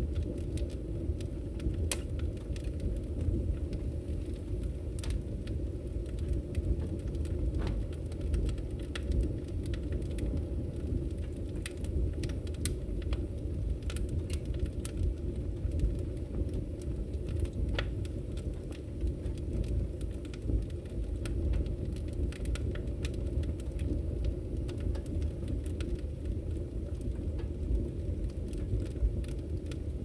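Wood logs burning in a fireplace: a steady low rumble of the fire with frequent, irregular sharp crackles and pops.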